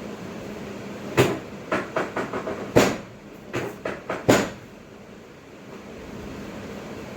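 A quick run of knocks and thumps, three louder than the rest, over a steady background hum.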